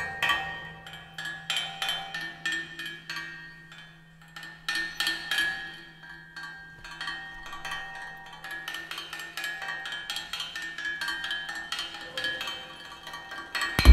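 Milking-parlour equipment played as percussion: quick, irregular metallic clicks and taps with ringing tones over a steady low hum, which stops near the end.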